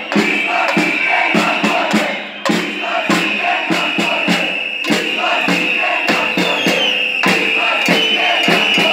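Large protest crowd chanting and shouting over a fast, regular beat of sharp strokes, with a continuous high shrill tone held over it.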